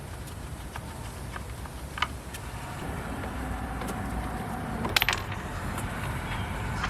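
Scattered sharp clicks and knocks of plastic door trim and parts being handled while a car's door handle is worked loose, with a louder cluster of clicks about five seconds in, over a steady low rumble.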